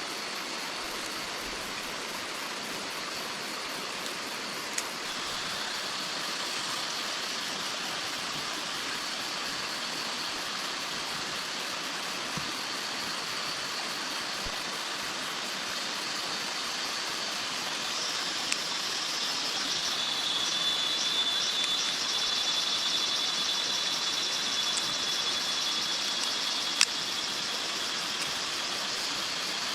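Steady hiss of rain. From about two-thirds of the way in, a high, thin steady whine joins it and the hiss grows a little louder. A few single sharp clicks are heard.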